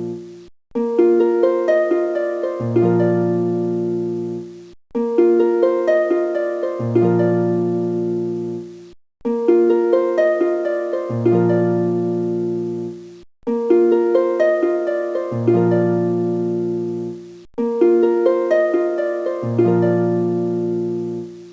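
Background music: a short melody of distinct notes, each starting sharply and fading, repeated over and over about every four seconds with a brief gap between repeats.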